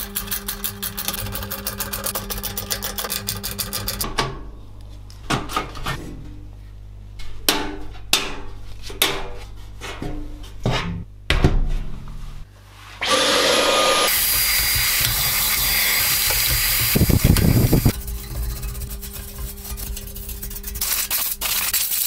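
A screwdriver undoing a motherboard screw in a steel PC case makes a fast run of regular clicks, followed by scattered clicks and knocks as parts are handled. A little after halfway, a spray can hisses in one long blast of about five seconds, then gives way to lighter rubbing.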